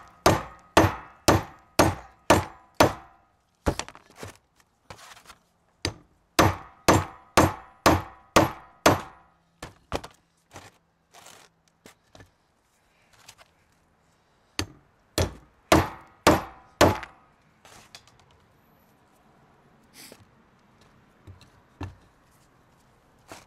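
Brass hammer striking a steel front-axle U-joint yoke that rests on wooden blocks, driving out the old universal joint's bearing caps. Three bursts of about six hard blows, roughly two a second, each with a short metallic ring, come with lighter taps between them and only a few faint taps near the end.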